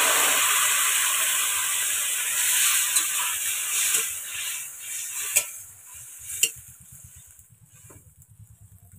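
Water hissing and sizzling as it hits a hot wok of frying vegetables, dying down over about six seconds. A metal spatula stirs and knocks against the wok four times.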